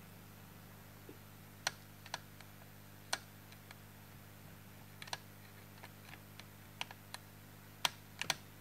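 Irregular small sharp clicks and taps, about a dozen, from a wooden toothpick and cloth working against the plastic REC key and metal chassis of a tape recorder during cleaning. A low steady hum runs underneath.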